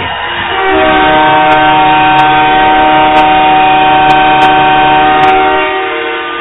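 Ice-hockey arena goal horn sounding a loud, steady multi-tone chord for about five seconds to mark a goal. It fades out near the end.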